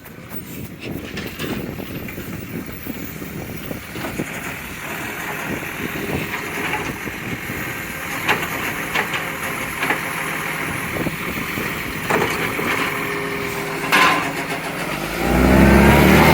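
Recycling garbage truck's engine running with a leaking exhaust, growing steadily louder, with a loud surge of low engine sound near the end. A sharp knock about fourteen seconds in.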